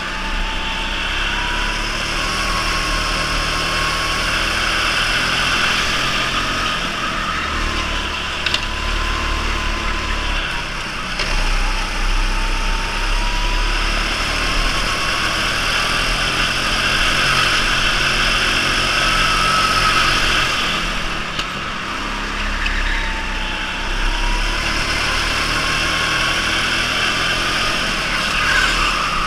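Electric go-kart's drive motor whining at racing speed under rushing wind and tyre noise. The whine rises in pitch as the kart speeds up and dips each time it slows for a corner, several times over.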